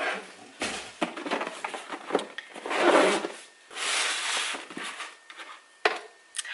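Cardboard rubbing and scraping as a boxed camera kit is pulled out of a large shipping carton and handled on a wooden table, in several rustling bursts with two light knocks near the end.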